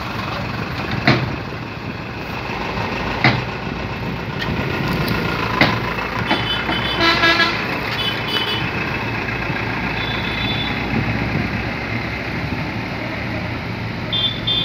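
Tracked excavator's diesel engine running steadily, with a few sharp knocks about one, three and five and a half seconds in. A vehicle horn toots briefly several times about six to eight seconds in.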